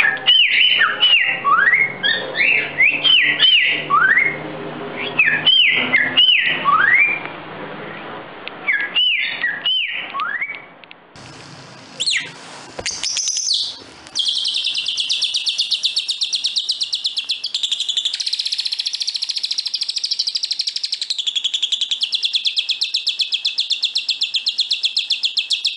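A cockatiel whistling an imitation of a green-winged saltator's (trinca-ferro) song: short clear phrases, each a falling arc followed by a rising slur, with pauses between. After a short break a lovebird sings an imitation of a Belgian canary: a fast continuous trill that shifts pitch several times.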